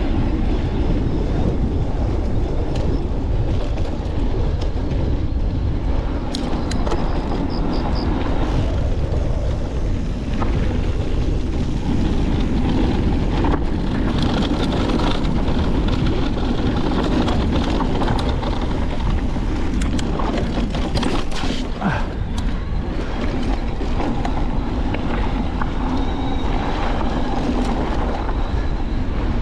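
Mountain bike riding down a rocky dirt trail: a steady rush of wind on the microphone and tyre noise over dirt and rocks, with scattered clicks and rattles from the bike.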